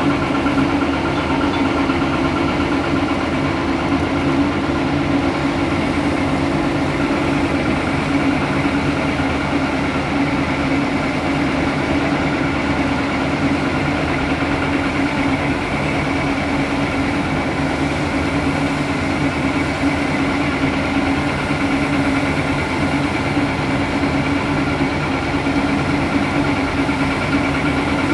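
Caterpillar 330D L excavator's diesel engine running steadily while the machine digs and loads dirt into a dump truck, its pitch holding even throughout, with no distinct knocks or bangs.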